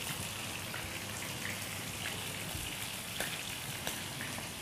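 Steady crackle and sizzle of food frying in hot oil, with a couple of light clicks from metal tongs on the platter.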